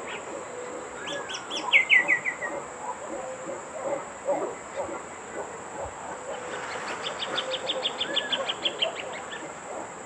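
Plain thornbird singing: two runs of rapid repeated notes. The first is short and falls in pitch as it speeds up, about a second in; the second is longer and starts about seven seconds in.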